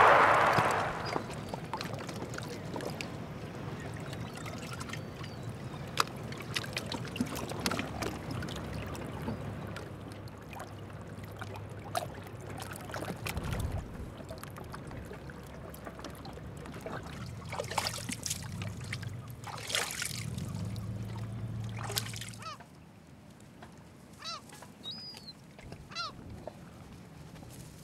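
Shallow sea water lapping and trickling among shoreline rocks, with many small splashes and drips. A low steady hum comes and goes in the middle, and a few short bird calls sound near the end.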